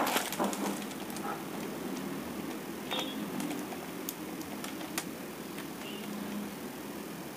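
Scattered light clicks and crinkles of hands handling a shrink-wrapped cardboard model-kit box as it is turned over, with a small cluster at the start and single ticks every second or so after.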